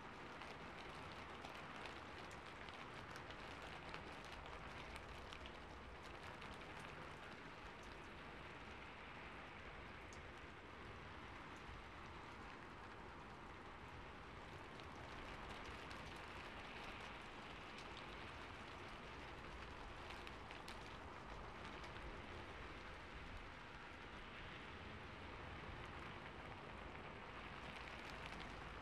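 Rain falling on a rooftop: a steady, quiet hiss with many small, sharp drop ticks scattered through it.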